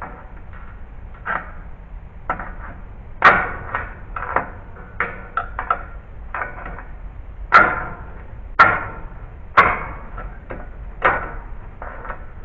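Hammer blows, a dozen or so irregular sharp strikes with a few much louder ones, from hammering a nail puller behind a header to draw nails out of deck framing.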